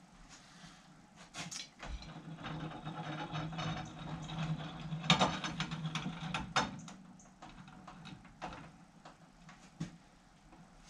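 Edgwick metal lathe running with a steady hum and gear clatter for several seconds, with a sharp knock about five seconds in, then stopping. Scattered clicks and knocks follow.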